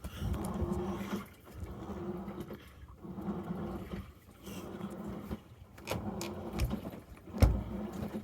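Samsung washing machine running a wash: the motor hums in spells of about a second and a half with short pauses between, as the drum turns back and forth. A few thuds sound, the loudest about seven seconds in.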